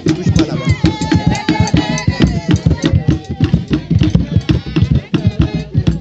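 Drums played at a quick, steady beat, with voices singing over them.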